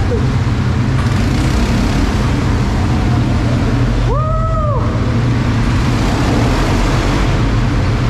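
ATV engine running steadily under way, with a constant rush of noise over it. A short held tone, rising and falling at its ends, sounds once about four seconds in.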